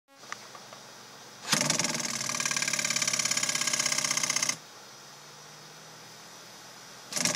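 Koolatron P27 cooler's 12 V interior cooling fan running with a faint hum, breaking into a loud rapid rattle about a second and a half in that stops after about three seconds and starts again near the end. The rattle is the fan hitting its housing, which the owner puts down to a wobbling, bent fan shaft.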